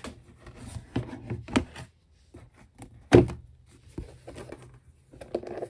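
Clear plastic sleeve pages of a ring binder being handled, with a few light taps. The binder's cover is shut with one loud thump about three seconds in, followed by a sharp click.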